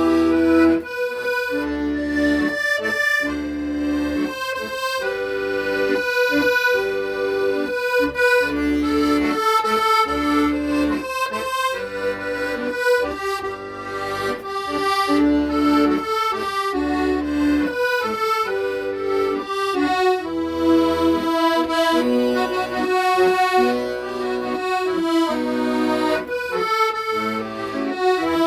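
Accordion playing a slow song melody over held chords, with low bass notes sounding on a regular beat.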